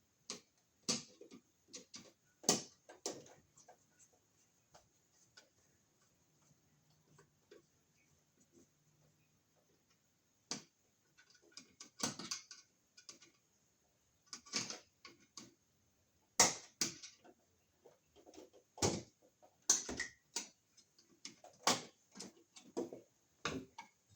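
Irregular clicks and knocks of hard parts and tools being handled, with a quieter stretch in the first half.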